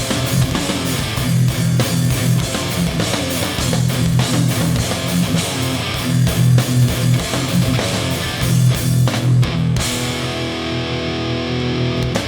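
Hardcore punk band playing live: distorted electric guitars, bass and drums on the song's closing riff. About ten seconds in, the drums stop and a final held guitar chord rings out, then cuts off at the very end.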